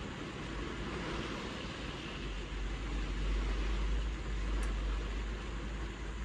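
Rain falling on a car windscreen, heard from inside the car as a steady hiss, with wind gusting against the car; a low wind rumble swells about two seconds in and holds for a few seconds.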